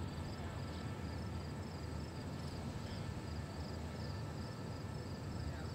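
Insects chirping in a regular, repeating high-pitched rhythm over a low, steady rumble.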